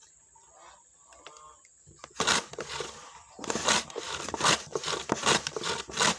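Shallots being sliced on a wooden hand slicer: the wooden pusher is shoved back and forth over the blade in quick rasping strokes, about two a second, starting about two seconds in.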